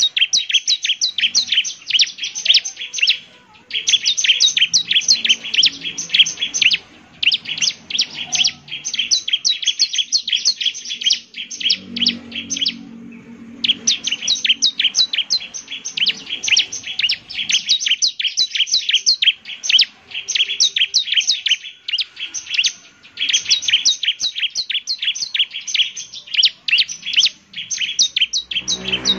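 Bar-winged prinia (ciblek) singing energetically: long runs of rapid, high, chattering notes, about seven a second, broken by brief pauses between phrases.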